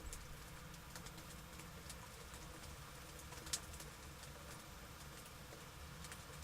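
Faint storm ambience: scattered raindrops ticking irregularly on a hard surface, one sharper drip about halfway through, over a low steady rumble.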